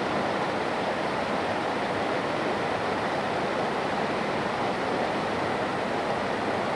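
River rapids rushing steadily over and between rocks, a constant even roar of white water.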